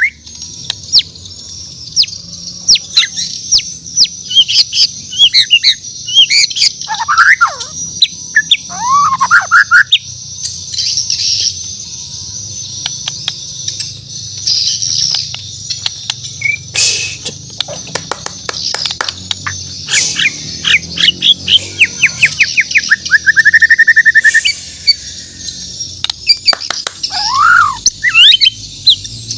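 A murai batu (white-rumped shama) singing a varied song of sweeping whistles and sharp chirps over a steady high hiss. About three-quarters of the way through it gives a fast trill of repeated notes.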